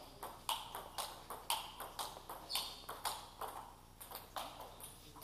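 Table tennis rally: the ball clicking off the bats and the table about twice a second, echoing in a large hall, with fainter clicks from rallies on neighbouring tables.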